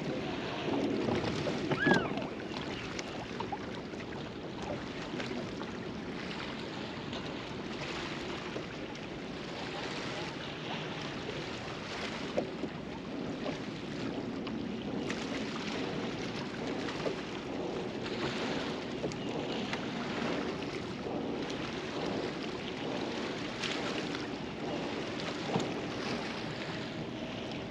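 Small waves lapping against a bass boat's hull, with wind on the microphone and a few light clicks and knocks, the loudest about two seconds in.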